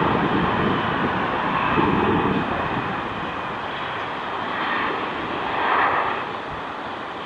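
Boeing 737-500's CFM56-3 turbofan engines during its landing, a steady jet rush that slowly fades, with a brief swell about six seconds in.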